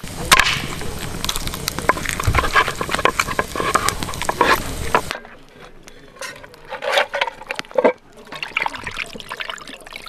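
Plastic bag crinkling and wet squelching as a raw black silkie chicken is handled, stopping abruptly about five seconds in; then scattered knocks and scrapes as the chicken goes into a metal camping pot.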